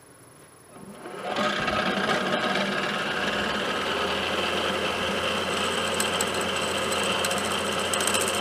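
Milling machine spindle starting up about a second in and running steadily as the cutter is brought down onto a metal hub; a fast clicking rattle of the cutter biting into the metal starts near the end.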